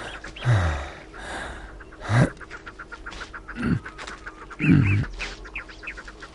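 A man groaning in pain and breathing hard, four short low groans that fall in pitch.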